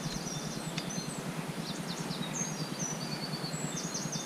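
Small songbirds chirping and trilling over a steady outdoor background hiss, with a quick run of repeated notes near the end.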